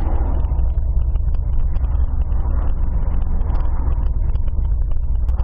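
Car driving: a steady low rumble of engine and road noise, with a couple of faint clicks near the end.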